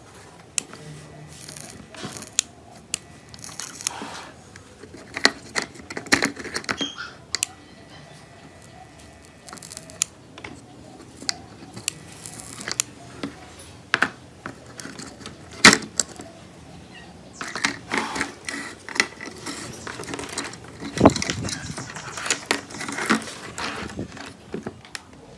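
Clicking and rattling of small hard plastic and metal parts being handled: a toy RC car's plastic chassis, small DC motors and loose screws. Sharp clicks are scattered throughout, with a few louder knocks in the second half.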